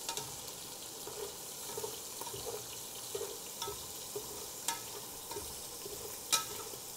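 Diced pork and pork fat sizzling in oil in a pot at low heat as the fat renders, stirred with a slotted spoon that scrapes and clicks against the pot; the sharpest knock comes near the end.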